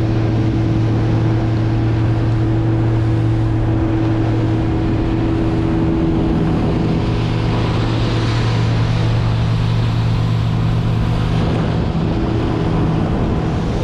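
Sea Fox boat's outboard engine running at a steady cruising drone, with water rushing past the hull. A rush of wind and water swells for a few seconds in the middle.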